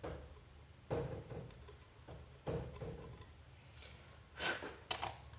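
A few short knocks and scratchy scrapes from handling tools and parts on a workbench, the sharpest two close together near the end.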